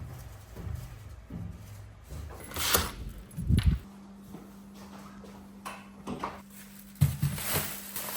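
Knocks and a heavy thud, then a steady low hum, with another sharp knock near the end.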